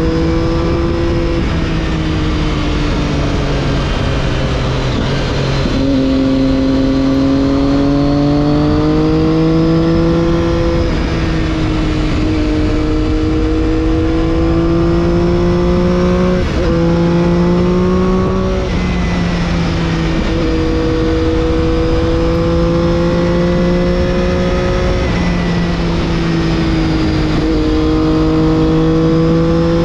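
Triumph Daytona 675's inline three-cylinder engine, fitted with an Arrow exhaust, pulling and easing off as the bike is ridden. Its pitch climbs and falls, with several quick gear changes, over a steady rush of wind.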